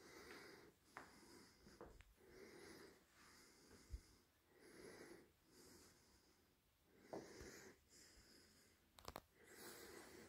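Faint breathing close to the microphone, a soft puff roughly every second, with a few light clicks, the sharpest about nine seconds in.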